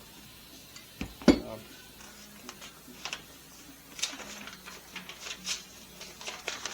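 Metal parts and tools clinking and knocking while a band saw is put back together: one loud knock just over a second in, then a run of lighter clinks.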